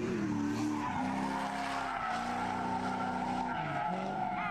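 Drift car sliding: the engine held high in the revs with a steady tire squeal. The engine note dips and picks up again about three and a half seconds in.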